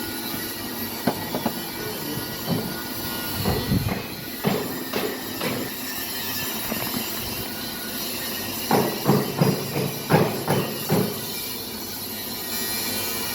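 Metal pump parts and tools knocking and clinking as they are handled, in scattered bursts with a busier run of clanks near the end, over a steady background hum.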